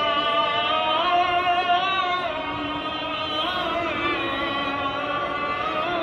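Melodic music of long held notes that glide slowly from pitch to pitch, with a singing quality.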